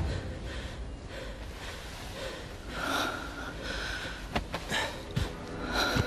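Muffled gasping and snorting breaths of a man being smothered, a hand clamped over his mouth, with a few short knocks of struggling in the second half.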